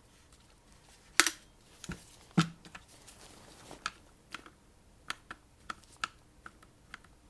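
Metal parts of a Panzerarms AR12 shotgun being handled during field-stripping: a series of sharp clicks and knocks, the loudest about a second in, followed by softer scattered ticks.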